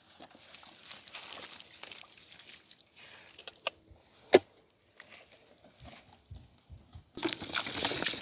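Dry rustling and crunching with scattered clicks, one sharp click about four seconds in, and a louder stretch of rustling near the end.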